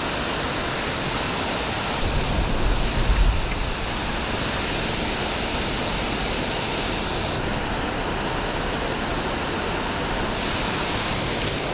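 Steady rush of water pouring over a creek waterfall, with a brief low rumble about two seconds in.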